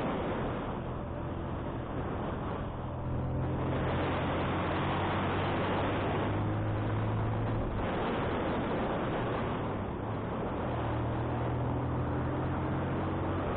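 Wind rushing over the microphone on a moving motorcycle, over the motorcycle's engine running steadily underneath, the wind noise swelling and easing every few seconds.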